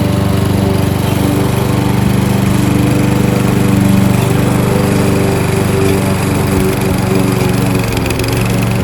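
Kohler XT-675 single-cylinder engine on a Yardworks push lawnmower running steadily while mowing grass with the bag off.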